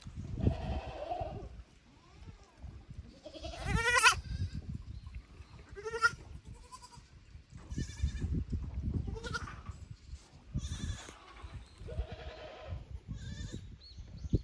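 Goats bleating repeatedly, a call every second or two, the loudest one about four seconds in and rising in pitch. Low rustling and thuds run underneath.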